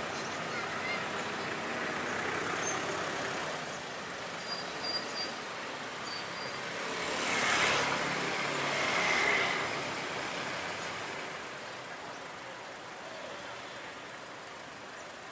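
Sakai ER300 road reclaimer running as it creeps along the road, a steady vehicle rumble with two louder rushing swells about halfway through, easing off toward the end.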